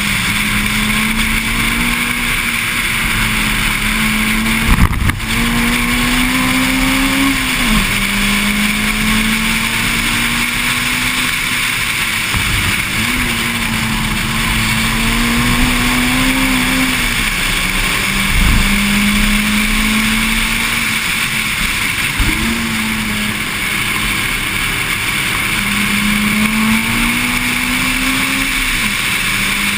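Honda Civic EG9 SiR's 1.6-litre four-cylinder engine lapping a race track: its note climbs slowly under throttle and then drops away sharply, three times over, under a constant loud rush of wind and road noise. There are a few sharp knocks along the way.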